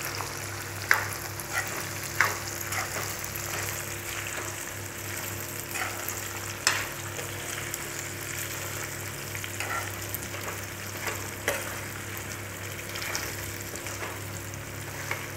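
A metal spoon stirring boiled lasoda berries and spices through hot oil in a metal pan: a soft steady sizzle, with a few sharp clinks of the spoon against the pan. A steady low hum runs underneath.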